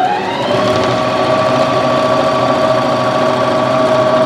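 Elna 450 electric sewing machine stitching piping into cushion fabric: its motor whine rises in pitch as it speeds up over the first half-second, then holds steady at full sewing speed.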